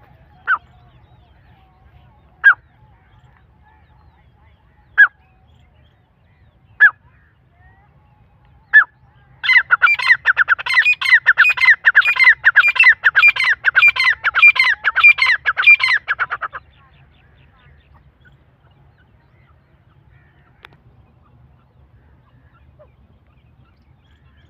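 Grey partridges (Irani teetar) calling: five single short call notes about two seconds apart, then a loud run of quickly repeated calls, about four a second, that lasts some seven seconds and stops abruptly.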